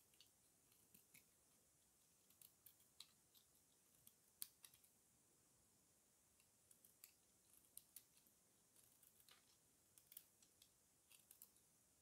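Snap-off utility knife blade shaving a dry bar of soap: faint, irregular crisp clicks and crackles as slivers come off, one sharper crack about four and a half seconds in.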